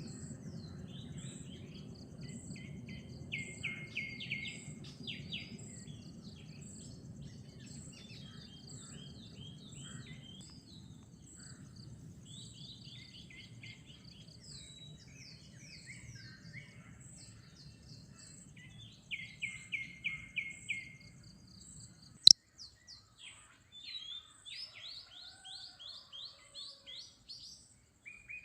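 Small birds chirping and calling, with fast runs of repeated notes about 3 seconds in and again near 19 seconds, over a low background rumble and a faint regular high-pitched ticking. A single sharp click about 22 seconds in cuts off the rumble, and a quick series of chirps follows.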